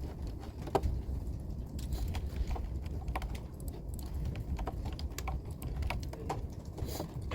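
Computer keyboard being typed on: scattered, irregular key clicks over a steady low hum.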